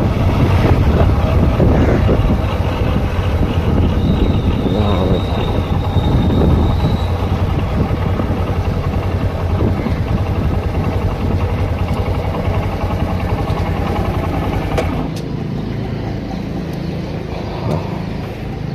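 Honda SP 125's single-cylinder engine running on the move, with wind rushing over the microphone; the sound drops off and grows quieter about fifteen seconds in.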